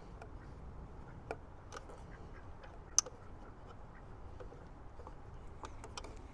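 Scattered light clicks and ticks from hand work fastening the screw that goes up through the bottom of an EV charge-wand holster bracket, irregular rather than a steady rhythm. A single sharp click about three seconds in is the loudest.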